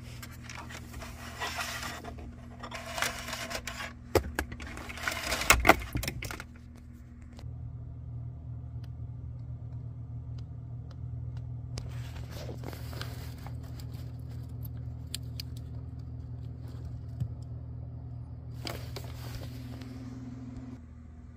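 Hands handling car wiring and plastic interior trim: rustling, clicking and scraping, busiest in the first seven seconds and again briefly twice later. A steady low hum runs underneath.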